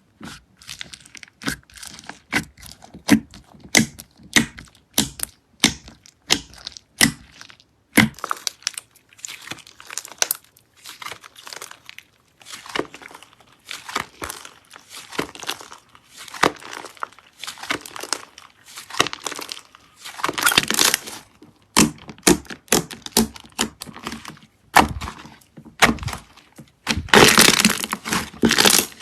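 Slime being squeezed and poked by hand, giving a run of sharp clicks and crackling pops, several a second, with thicker bouts of crackling about two-thirds through and near the end.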